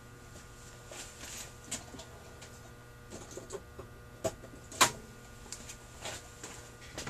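Scattered small clicks and taps of small metal carburetor parts and hand tools being handled, with one sharper click about five seconds in, over a steady low electrical hum.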